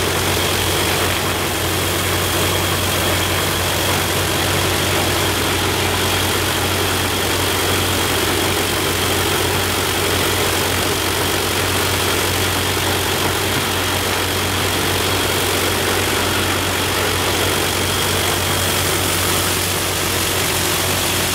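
Shvetsov ASh-82T fourteen-cylinder two-row radial engine of an Ilyushin Il-14T running steadily with its propeller turning: an even, unbroken low engine drone with a thin steady high tone over it.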